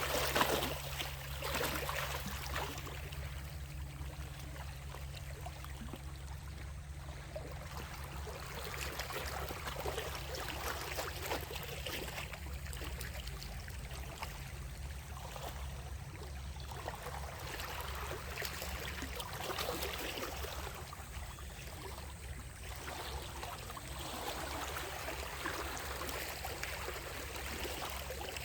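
Sea waves breaking and washing on the shore, swelling and easing every few seconds.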